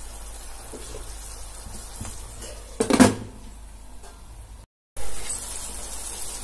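Chopped onions and capsicum in sauce sizzling in a nonstick pan while being stirred with a wooden spatula. About three seconds in, a glass lid is set on the pan with a single loud knock; the sizzling carries on under it.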